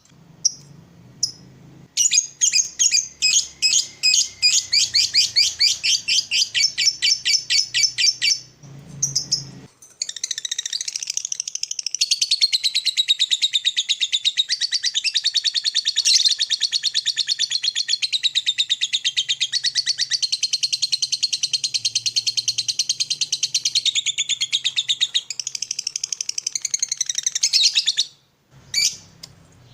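Lovebird chattering: a run of quick repeated chirps, then after a short break a long unbroken, rapid chatter lasting nearly twenty seconds, the long 'ngekek' call that fanciers play to set other lovebirds singing.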